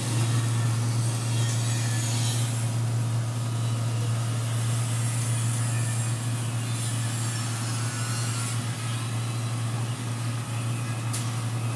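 Dry-coffee huller running steadily while hulling dried coffee beans, a constant low hum under a rushing hiss, with one sharp click near the end.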